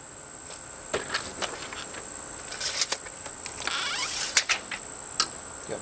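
A tape measure being pulled out and handled against a door: scattered clicks and knocks of the case and blade, with a short whirring rasp about four seconds in. A steady high-pitched whine runs underneath.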